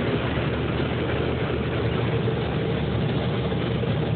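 Heavy diesel farm machinery running steadily during corn harvesting, a constant low engine hum under broad mechanical noise.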